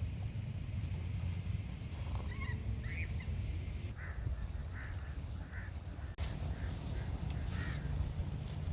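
A bird giving a series of short honking calls about half a second apart, over a steady low rumble.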